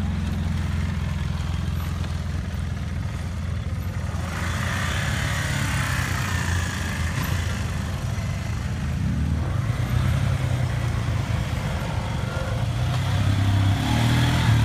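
ATV and side-by-side (UTV) engines running at low speed as the machines crawl down a dirt slope one after another, a steady low engine rumble that gets louder near the end as a red Polaris Sportsman-type quad passes close.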